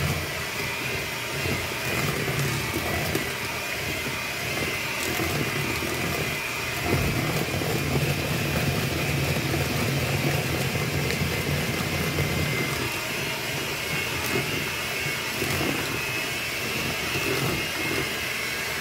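Hamilton Beach electric hand mixer running steadily with its beaters in cake batter, a constant motor whine over a low hum, switched off abruptly at the end.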